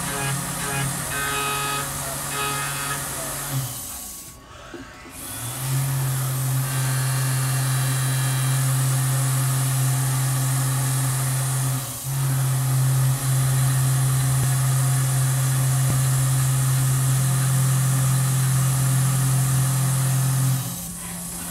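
Tormach CNC mill spindle running at 8000 RPM while end mills cut an aluminium part under flood coolant. It gives a steady hum with a cutting hiss on top. The sound drops out briefly about four seconds in, breaks for a moment about halfway, and fades near the end as the cutter changes.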